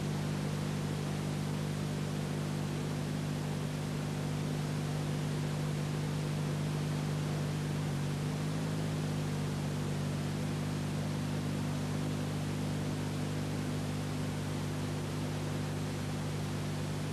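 Steady hiss with a low electrical hum underneath and no other sound: the background noise of an old film or tape transfer that carries no soundtrack.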